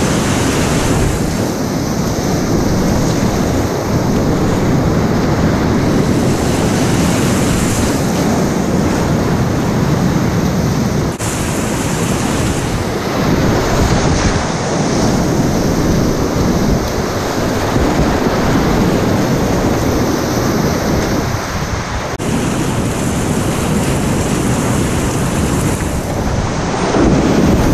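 Loud, continuous rushing of whitewater rapids on a river at medium-high flow, heard from a kayak running through the foaming drops. The noise shifts abruptly a few times.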